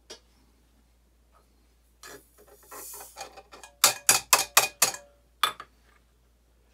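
Varget rifle powder poured from a scale pan through a funnel into a cartridge case, a short hiss of grains, followed by a quick run of sharp taps on the funnel to knock the last grains down into the case.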